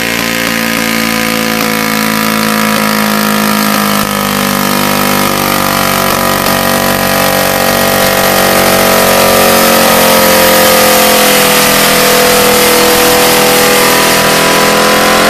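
Garden pulling tractor's engine running loud and hard, its pitch slowly sinking through the run as the engine is pulled down under the load of the sled.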